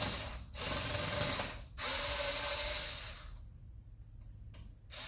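Screwdriver with a size 9 bit turning out small screws inside an Xbox One S: runs of whirring of about a second each, separated by brief gaps, a pause of a second and a half after the third, and another run starting near the end.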